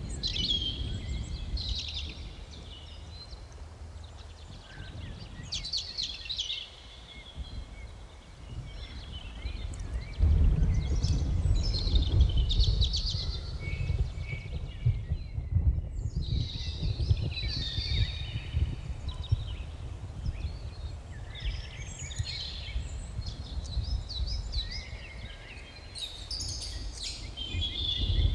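Outdoor ambience of several birds chirping and singing in short phrases, over a low rumble that grows louder about ten seconds in.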